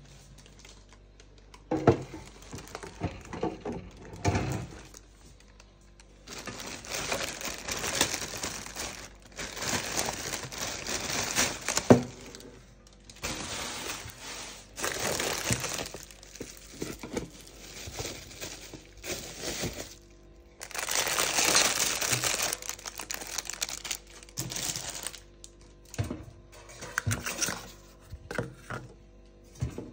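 Plastic film and bubble wrap crinkling and rustling in irregular bursts as they are handled and pulled out of an air fryer basket, with a couple of sharp knocks.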